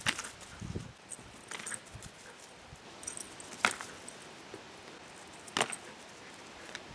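Dog playing with a frisbee: four sharp clicks or knocks about two seconds apart, the loudest about halfway through, with some light jangling.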